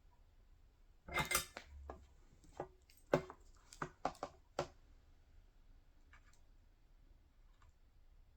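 Small hard objects being handled on a workbench: a quick run of light knocks and clinks over about four seconds, then quiet.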